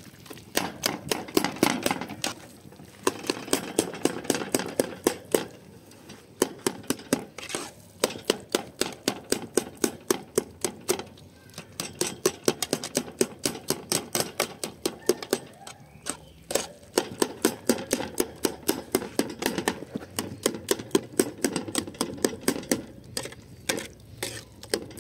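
Metal ladle clinking and scraping against a steel cooking pot while a stew is stirred: rapid, fairly even clicks, several a second, pausing briefly now and then.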